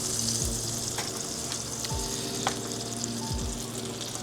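Butter sizzling and spitting on the hot cooking plate of a Weber Pulse electric grill, a steady crackling hiss as the fat heats up ready for the burgers.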